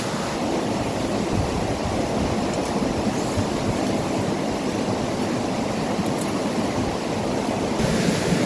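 Strong wind blowing with a steady rush and rumble on the microphone, growing a little louder near the end.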